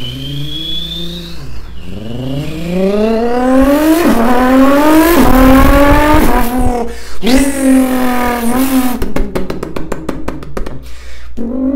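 A man's vocal imitation of a turbocharged Nissan GT-R: it opens with a rising whistle like a spooling turbo, then an engine note climbs in pitch through several gears, dropping sharply at each shift, and near the end breaks into a rapid stutter before stopping.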